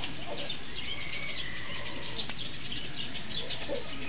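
Small birds chirping over and over against a steady background hiss, with a single sharp click about two seconds in.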